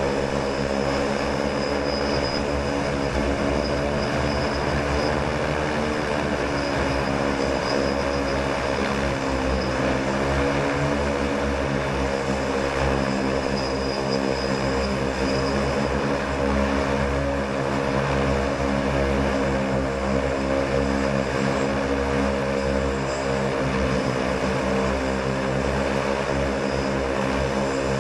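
Propellers of a manned multirotor hovering: a steady droning whir made of several close pitches that waver slightly against each other.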